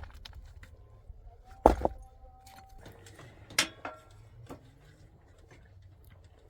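Hard objects clinking and knocking against each other in a few separate strikes. The loudest comes about 1.7 s in and leaves a short ringing tone; another sharp knock follows around two seconds later.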